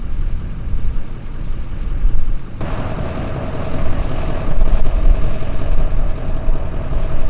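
Lifted pickup truck's engine idling, mixed with a rough low rumble of wind on the microphone; about two and a half seconds in, a steady mid-pitched hum joins it.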